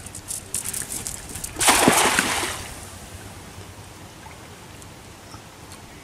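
A cast net thrown from a boat lands on the river with one loud splash about a second and a half in, its weighted rim striking the water in a spread lasting about a second. Before it come a few short ticks and drips from the swung wet net.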